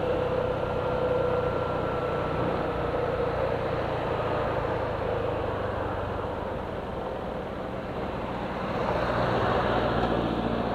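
Suzuki Gixxer 150's single-cylinder engine running under wind and road noise as the motorcycle slows down, its note falling gradually.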